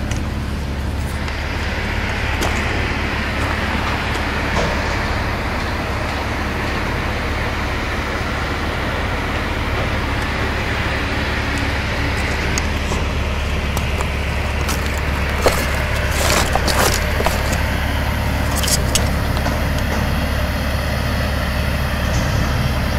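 Steady low rumble of a heavy machine's diesel engine running at the demolition site, with a few sharp clicks about two-thirds of the way through.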